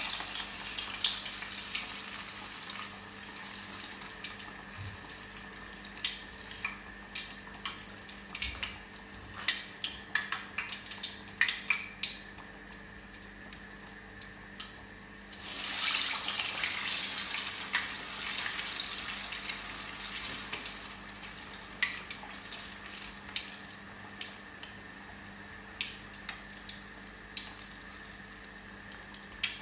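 Keerai vadai (urad dal, spinach and beetroot fritters) deep-frying in hot oil: a steady sizzle with scattered crackles and pops. About fifteen seconds in, another vadai goes into the oil and the sizzle swells suddenly, then slowly settles.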